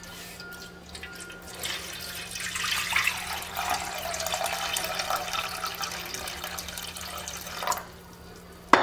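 Half a litre of water poured into a metal pan, splashing and filling it for several seconds, then stopping. Near the end comes one sharp knock.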